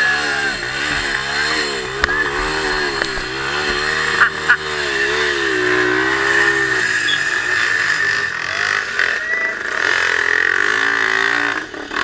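Off-road trail motorcycle engine revving hard, its pitch rising and falling again and again as it labours over the trail. The revving drops away for a couple of seconds past the middle, then picks up again.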